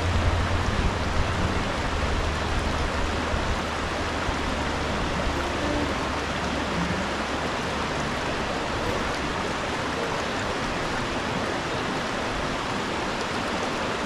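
Water rushing steadily, an even hiss that never breaks.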